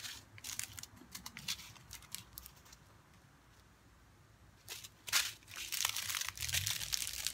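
Small clear plastic bags of diamond painting drills crinkling as they are picked up and handled, in short scattered crackles, with a quiet gap of about two seconds in the middle.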